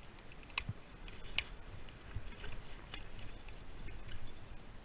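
Handling noise from a climber moving in a rope-access harness at a roof edge: scattered sharp clicks and a few soft knocks from the carabiners and hands gripping the gutter pipe, over a low steady rumble.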